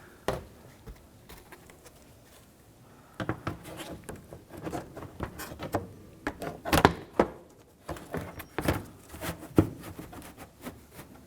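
A plastic cover being handled and fitted back over the truck's front end, giving irregular clicks, taps and knocks of plastic against the body. There is one sharp click near the start, then a busy run of handling knocks from about three seconds in.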